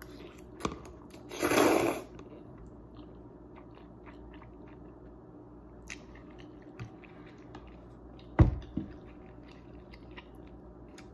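A person slurping a forkful of Korean black bean noodles about a second and a half in, then chewing with small wet mouth clicks. A sharp thump about eight seconds in.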